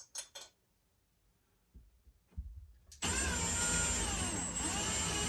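A few light clicks, then about three seconds in a handheld power driver starts up and runs steadily under load, its whine dipping and rising as it drives a screw through the drywall into the wood behind it.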